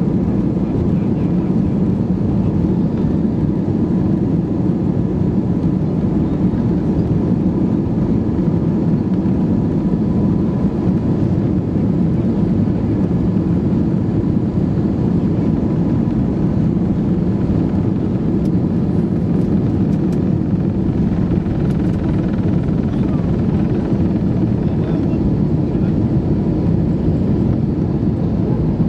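Cabin noise of an Airbus A319-132 at takeoff thrust, heard from a seat beside the wing: its IAE V2500 engines make a loud, steady rumble with a faint thin whine, through the takeoff roll and into the climb.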